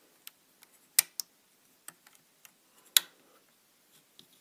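Plastic Lego bricks clicking as they are handled and pressed together. There are two sharp clicks about two seconds apart, with lighter ticks between them.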